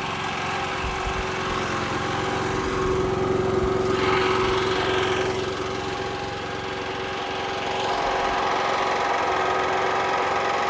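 Harbor Freight Predator 9500 inverter generator's 459cc engine idling steadily with no load. Its level rises over the first few seconds and again near the end.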